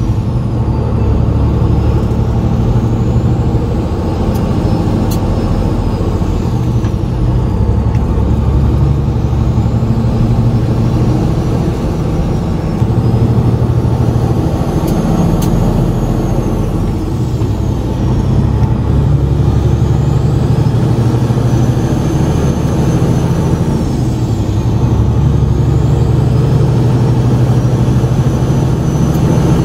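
Semi truck's diesel engine running under way, heard from inside the cab. The engine note dips and comes back a few times as the truck works through its gears, with a faint high whistle rising and falling along with it.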